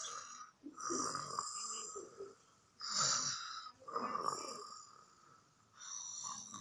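Domestic cat snoring in its sleep: about five raspy breath sounds, each under a second, coming at an uneven rhythm with short gaps between them.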